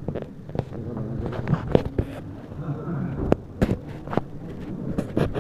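Murmur of voices in a crowded room, broken by irregular sharp knocks and clicks about every half second to second.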